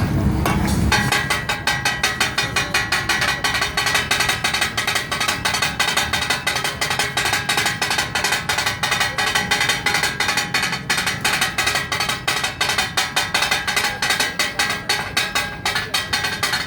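Metal spatulas beating and chopping on a hot iron griddle (tawa) in the rhythmic clatter of takatak cooking, about three to four strikes a second, with a metallic ring to each strike.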